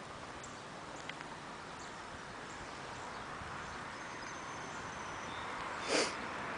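Quiet outdoor background: a steady, even hiss of ambient noise with a few faint, short high chirps, and a brief brush of noise about six seconds in.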